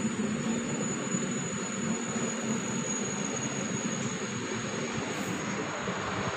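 Passenger train passing a level crossing: a steady rumble and clatter of the coaches rolling over the rails, heard from inside a car.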